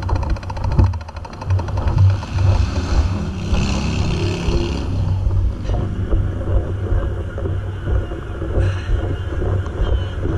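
Steady low rumble of wind buffeting the microphone and road noise while moving, with a brief higher hum about four seconds in.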